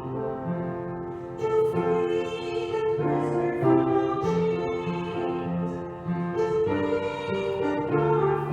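Slow church music: a melody of held notes over a sustained accompaniment.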